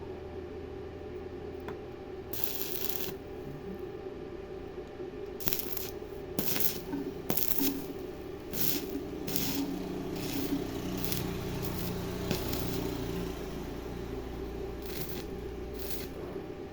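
Arc welding in short tacks: about ten brief crackling bursts of the arc at irregular intervals over a steady hum.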